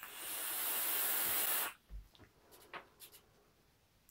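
Hiss of a long draw on an electronic cigarette: air pulled through the atomizer with the coil firing. It swells over the first half-second, holds steady, and cuts off sharply a little under two seconds in, followed by a few faint ticks.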